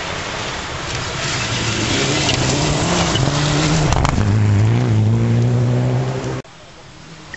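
Rally car engine coming closer and growing louder at full throttle, its pitch climbing and then stepping down about four seconds in, over a rush of tyre and gravel noise. It cuts off suddenly near the end to a much quieter outdoor background.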